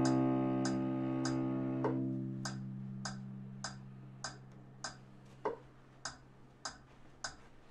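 A cello's final low bowed note is held, then released and left to ring, dying away over several seconds. Under it a metronome ticks steadily about every 0.6 seconds, with a louder accented click every sixth beat.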